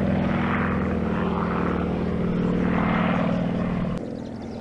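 Sukhoi Su-26M aerobatic plane's nine-cylinder M-14P radial engine and propeller running steadily. The sound drops suddenly in level near the end.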